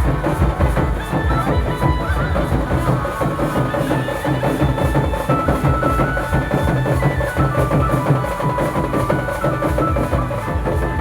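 Nagpuri folk music: drums keeping a fast, steady beat under a held melody on a wind instrument.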